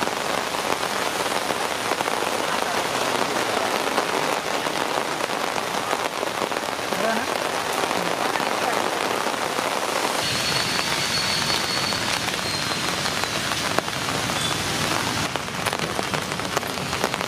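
Steady rain pattering down on the wet ground and the tarp canopy overhead.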